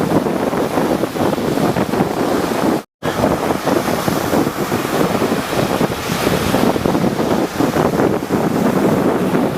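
Rough sea waves surging and breaking, with wind buffeting the microphone. The sound cuts out completely for a split second about three seconds in.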